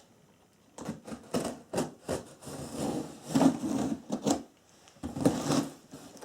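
Cardboard box of flat-pack chairs being cut open with a box cutter and unpacked: irregular scraping, tearing and rustling of cardboard, with sharp clicks, starting about a second in.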